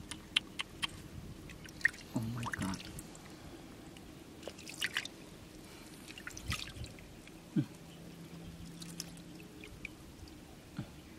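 Hands moving in shallow river water: irregular small splashes and drips.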